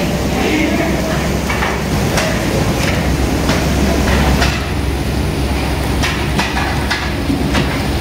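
Tableware clattering in irregular clicks and knocks over a steady low hum.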